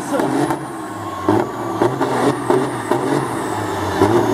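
Semi-truck tractor's diesel engine running under load, with a steady low drone, as its rear drive tires spin in a smoky burnout.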